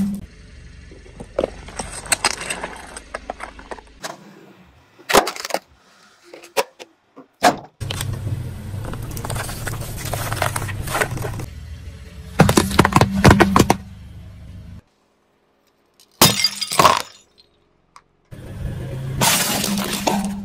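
A car tyre rolling over and crushing objects one after another: glass candle cups and a glass bottle cracking and shattering into crunching fragments, and a plastic toy cracking under the wheel. The crushing comes in several separate bursts of sharp cracks, with quieter stretches and two brief silences between them.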